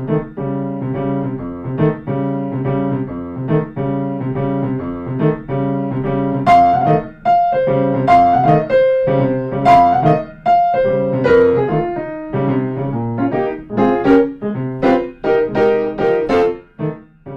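Background music: a piano-like keyboard playing evenly repeated chords, with a higher melody line coming in about six and a half seconds in.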